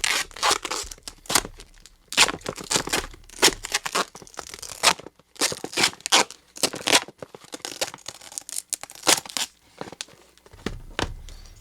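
Tape and paper wrapping being torn off a taped-up package: many short, irregular ripping sounds with brief pauses.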